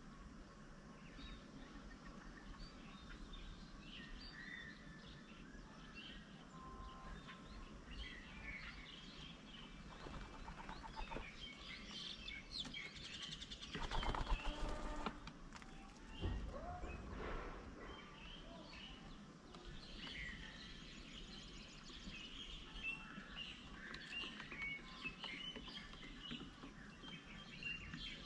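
Small birds chirping and calling in many short notes, with a louder rustle about halfway through and a low thump just after it.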